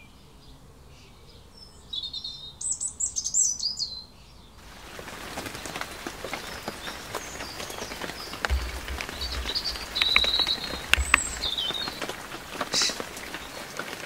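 Garden birds chirping and singing over a quiet background for the first few seconds. Then rain falling steadily, with many sharp drop taps close to the microphone and splashes into birdbath water, and birds still calling now and then.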